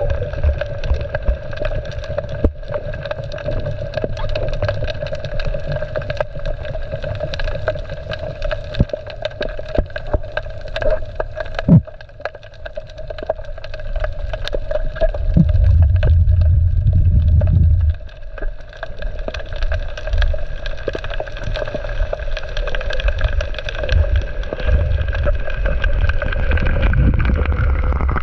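A small boat's outboard motor running at a steady pitch, with rumbling water and wind noise underneath that swells loudest a little past halfway.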